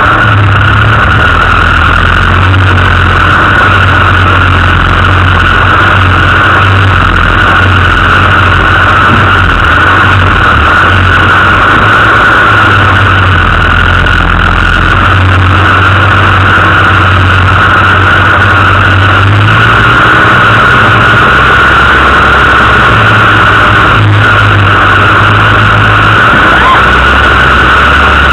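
Off-road 4x4's engine running at low revs for the whole stretch, its note stepping up and down with throttle changes about two-thirds of the way through, under a steady hiss.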